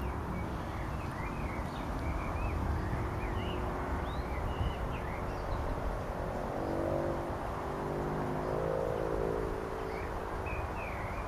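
Wind rumbling on the microphone, with small birds giving short high chirps through the first half and again near the end. About halfway through, a distant engine hum swells and fades over a few seconds.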